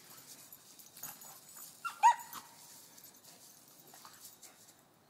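Two pit bull–type dogs wrestling in play, with faint scuffling and one short, high-pitched yelp about two seconds in.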